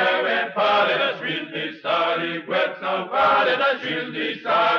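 Voices chanting, phrase after phrase with short breaks between.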